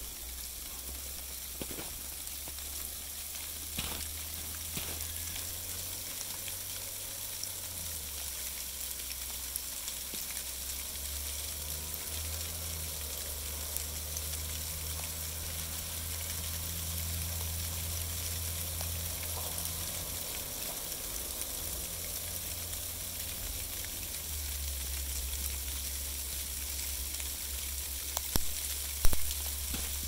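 Dry sleet pellets falling steadily on dry beech leaves and snow, a fine continuous hiss, over the low rumble of a distant snowplow, its engine tone strongest through the middle. A sharp tap near the end.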